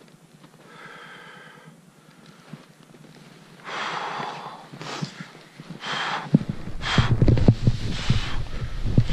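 A skier breathes hard through the nose and mouth, in a few short sniffs and loud breaths. About six seconds in, wind starts buffeting the helmet-camera microphone, and skis hiss and crackle through deep powder snow as he drops in.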